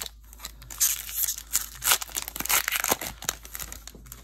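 Foil wrapper of a Magic: The Gathering booster pack crinkling and tearing as it is opened by hand: a dense run of crackles starting about a second in and lasting some two and a half seconds.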